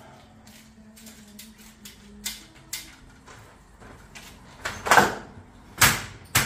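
Knocks and clicks of a caravan roll-out awning being worked loose, ending in three loud bangs close together as it comes away unexpectedly.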